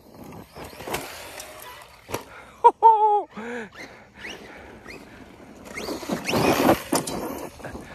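Arrma Kraton 4S BLX radio-controlled truck driving over loose dirt and gravel: tyres crunching through the gravel and the brushless motor whining, with a couple of sharp knocks near the middle and a louder burst of acceleration with a rising whine about six seconds in.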